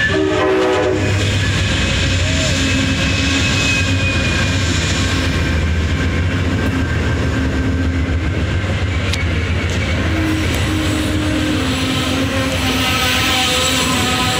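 Amtrak GE P42DC diesel locomotive and its bilevel Superliner passenger cars rolling past close by, a steady loud rumble of engine and wheels on the rails.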